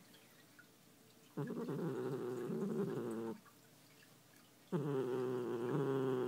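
Domestic cat growling: two long, steady growls, the first starting about a second and a half in and lasting about two seconds, the second starting near the five-second mark and still going at the end, with short pauses between them. The growls are the cat's warning of displeasure, here at being brushed.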